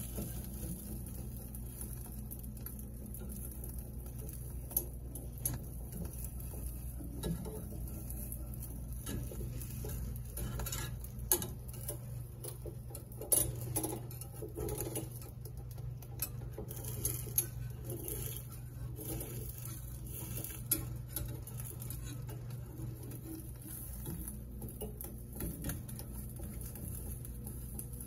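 Irregular light clicks and taps of a metal utensil being worked at a kitchen counter, over a steady low hum.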